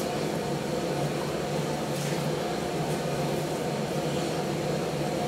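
Steady mechanical hum, even throughout, with faint brushing sounds about two and three seconds in as hands rub balm into a beard.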